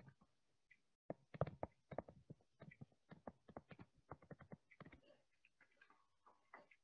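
Faint, irregular tapping of a stylus writing numbers on a tablet, a rapid run of short clicks that thins out near the end.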